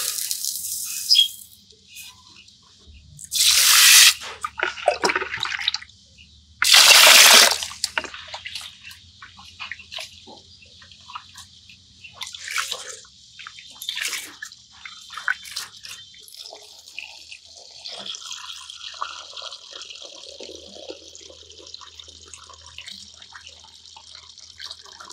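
Raw rice being washed by hand in a steel pot of water. The dry grains rush in at the start, two more loud splashing pours follow a few seconds apart, then comes quieter sloshing and dripping as the hands work the rice.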